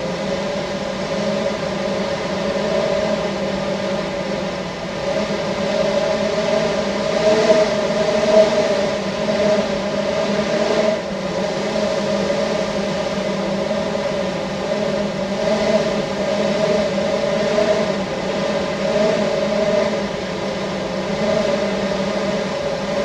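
Monroe Reservoir's lake drain outflow: a steady, slightly wavering humming drone over an even rushing hiss.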